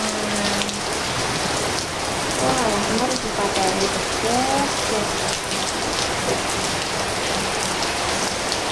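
Steady rain falling: a dense, even hiss scattered with the sharp ticks of individual drops.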